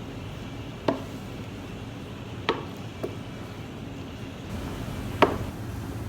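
Four sharp kitchen knocks at uneven intervals, like a utensil striking a cutting board, the last one the loudest, over a steady low hum.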